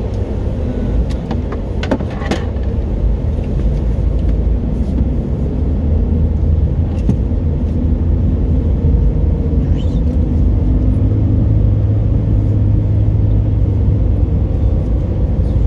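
Car engine and road noise heard from inside the cabin while driving: a steady low rumble that gets a little louder over the first few seconds as the car pulls away from a green light.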